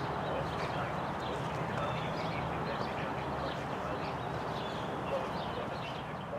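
Steady outdoor background hum with small birds chirping now and then; no siren tone is heard.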